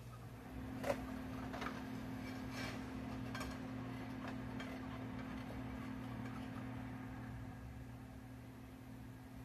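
Kitchen handling sounds: a few light clicks and knocks of utensils and cookware, the loudest about a second in, over a steady low hum that comes on just after the start.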